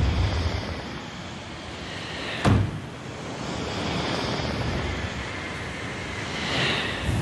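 Rushing wind noise, swelling and easing, with one sharp knock about two and a half seconds in.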